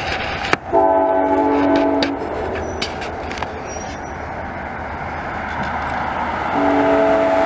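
Amtrak locomotive's multi-chime air horn sounding a short blast about a second in and a longer one starting near the end, over the steady rumble and rail clicks of a moving train.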